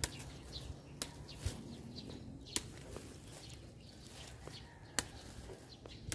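Rustling in dry grass and twigs with about five sharp snaps spread unevenly a second or more apart, and faint bird chirps behind.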